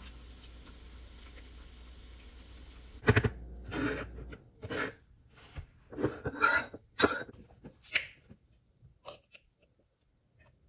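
Oil sizzling faintly and steadily around shrimp toast deep-frying in a small saucepan. About three seconds in this gives way to a run of sharp knocks and clatter as a ceramic bowl, a metal spoon and a garlic container are handled on a stone countertop; the loudest knocks come right at the change and again a few seconds later.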